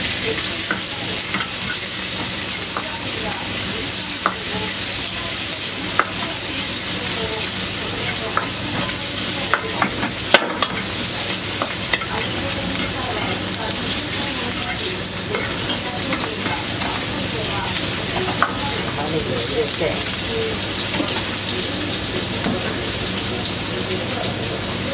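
Meat and vegetables sizzling in a hot wok during a stir-fry, with a metal ladle scraping and clacking against the wok. The sizzle is steady; sharp clacks are scattered through, the loudest about ten seconds in.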